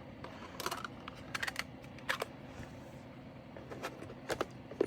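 Scattered light clicks and taps in small clusters, from small plastic containers and bags of leftover diamond-painting drills being handled and sorted.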